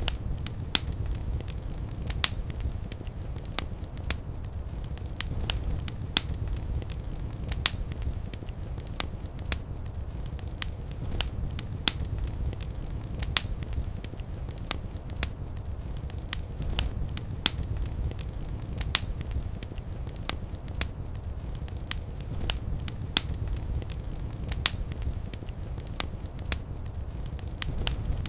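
Wood fire burning in a fireplace: a steady low rumble with irregular sharp crackles and occasional louder pops.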